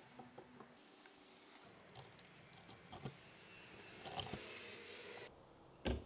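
Quiet hand-tool work on wood at a workbench: scattered light taps and clicks, a stretch of scraping about two-thirds of the way in, and a single sharp knock just before the end.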